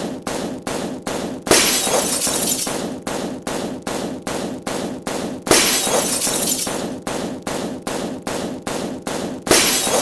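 Glass-shattering sound effect repeated in quick succession, about three short breaks a second, with a longer, louder crash every four seconds.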